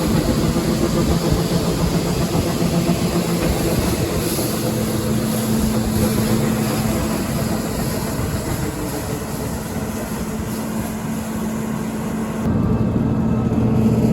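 A heavy farm machine's engine running steadily under a broad mechanical rush. Near the end the sound changes abruptly to a duller, lower hum.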